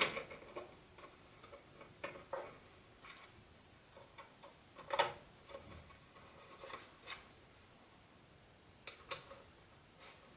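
Light, irregular clicks and knocks of wooden parts being handled and fitted together by hand, with a louder knock about five seconds in and two quick taps near the end.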